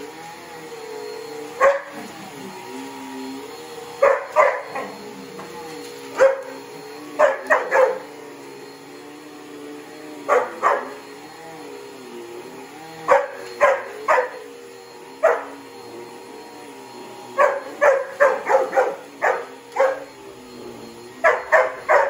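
Border Collie barking at a running upright vacuum cleaner, in clusters of sharp barks separated by pauses of one to two seconds, with the busiest run in the last few seconds. The vacuum's steady hum runs underneath.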